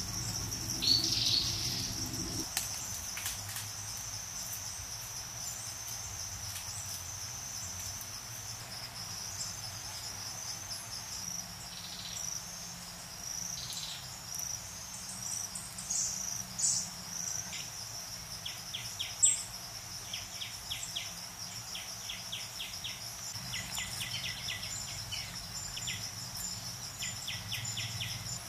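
Forest ambience: a steady high-pitched insect drone with scattered short bird chirps, and in the second half repeated bursts of rapid clicking trills.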